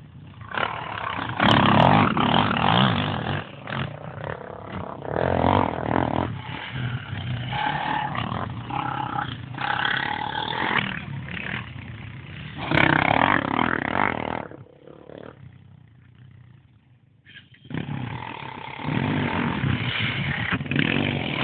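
Quad bike (ATV) engine revving and running hard, its pitch and loudness rising and falling with the throttle, then dropping away for a few seconds about two-thirds through before picking up again.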